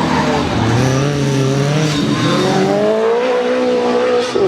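Racing car engine accelerating hard, its pitch climbing, falling back briefly about two seconds in as it changes gear, then climbing again before dropping sharply near the end.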